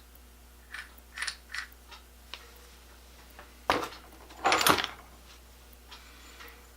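Steel knockout punches and dies clinking as they are handled, with a few light clicks, then a sharp clank and a louder clatter of metal parts knocking together near the middle.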